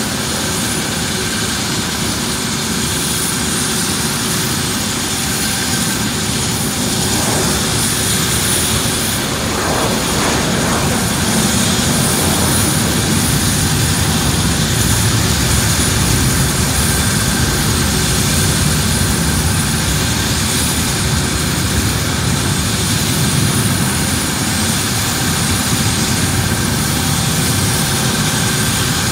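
Light helicopter running steadily on the ground at idle, a loud continuous engine and rotor noise that grows a little louder several seconds in and then holds.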